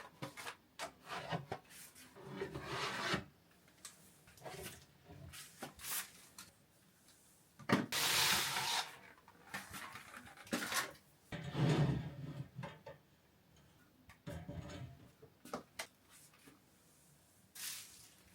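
Objects being handled and set in place: irregular rubbing and scraping with short clicks and knocks, the longest and loudest scrape about eight seconds in.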